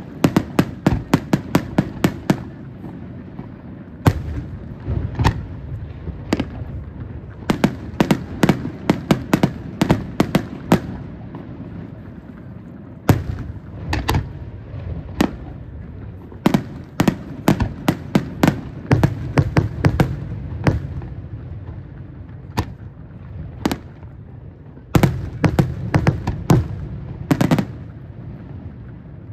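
Professional aerial firework shells bursting in rapid volleys of sharp bangs, with a low rumble carrying on between the reports. The barrage thins out briefly twice before building again near the end.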